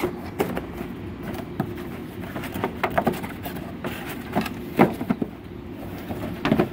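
White corrugated cardboard being folded and handled: irregular short knocks and scrapes as flaps are bent over, tabs tucked in and the box piece moved, over a steady low room hum.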